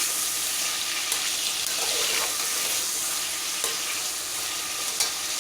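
Chicken pieces sizzling steadily in hot oil and vanaspati ghee over a high flame, browning until they change colour. A few sharp clicks are heard through the sizzle.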